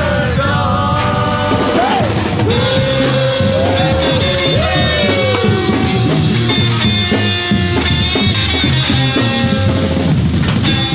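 Soundtrack music: an up-tempo rock song with a drum beat and gliding melodic lines, with no sung words.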